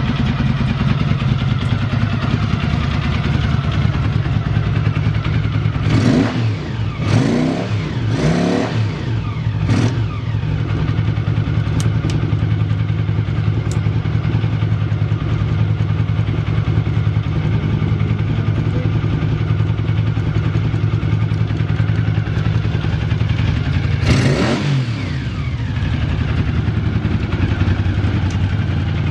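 Honda GL700 Interstate motorcycle engine idling steadily, with a burst of four quick throttle blips about six seconds in and one more blip about two-thirds of the way through. The idle holds stable with no unusual noise, a sign of an engine in sound running order.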